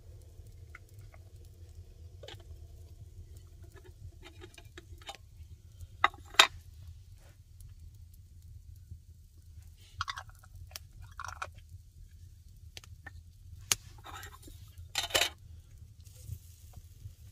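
Metal cookware knocking and clanking as a kettle and a pot are handled on the stone hearth of an open wood fire: a sharp double clank about a third of the way in is the loudest, with further knocks and scrapes later.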